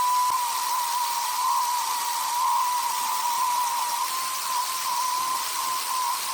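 Electric power tool motor running with a steady high whine over a hiss, its pitch wavering slightly.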